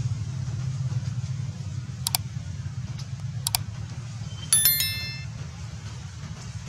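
Subscribe-button sound effect: two mouse clicks about a second and a half apart, then a bright bell chime that rings for about a second, the loudest sound here. Underneath runs a steady low rumble.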